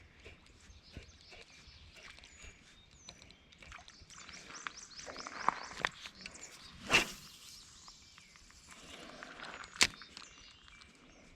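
Outdoor ambience with birds singing, and a few sharp clicks and knocks from handling, the loudest about seven seconds in and another near ten seconds.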